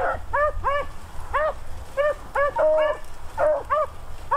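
A pack of beagles baying on the run, a steady string of short yelping calls about two or three a second with an overlapping longer drawn-out note about two and a half seconds in: hounds giving tongue as they push a cottontail rabbit through the brush.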